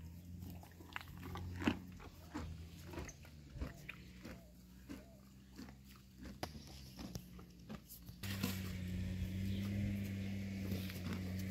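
Mangalarga Marchador mare chewing green fodder: a run of short, irregular crunches and bites. About eight seconds in, a steady low hum comes in and covers the chewing.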